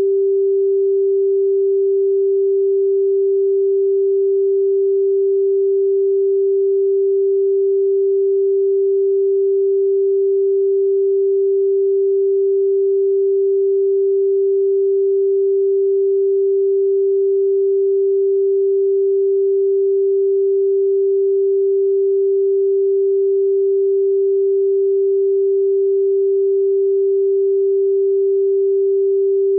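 A steady pure sine tone at 392 Hz (the note G4), held unchanged at one constant loudness.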